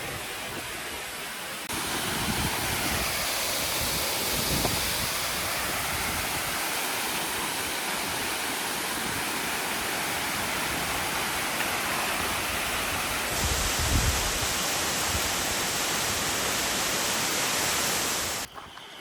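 Waterfall's steady rushing roar of falling water, stepping louder about two seconds in and cutting off abruptly just before the end.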